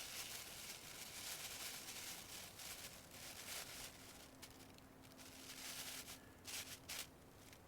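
Faint rustling and crinkling of a thin transparent plastic sheet being folded and handled, with a few sharper crackles about four to seven seconds in.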